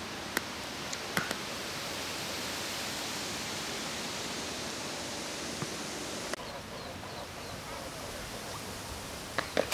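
Steady outdoor hiss of breeze over rippling lake water, with a few faint clicks in the first second or so; the hiss turns duller about six seconds in.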